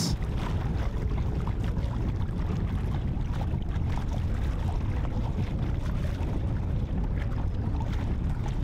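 Wind buffeting the microphone with a deep rumble and a steady rushing hiss, aboard a sailboat sailing fast under its headsail in a gusty breeze.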